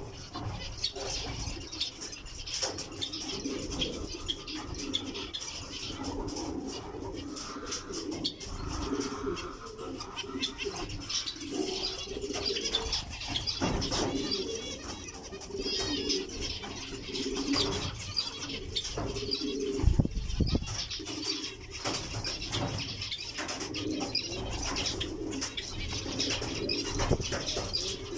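Cage birds calling continuously: repeated low notes with high chirps and twittering over them, the high chirping typical of zebra finches.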